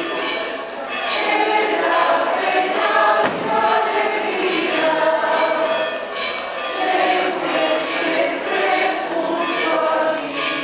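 Mixed church choir of men and women singing a hymn together in a church.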